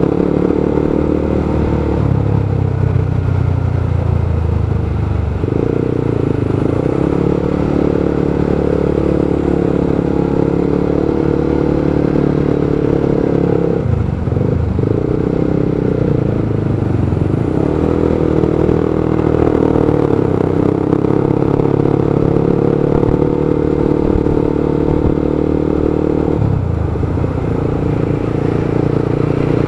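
Motorcycle engine running in stop-and-go traffic, its note stepping up and down several times as the throttle opens and closes, with surrounding road traffic noise.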